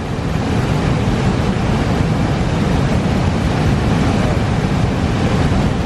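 Steady rushing of river water over rapids, with low rumble from wind on the microphone.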